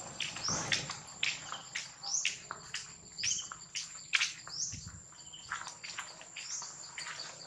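Natural ambience of insects and birds: a steady high-pitched insect drone, with a bird repeating a short rising-and-falling call about once a second among other quick chirps.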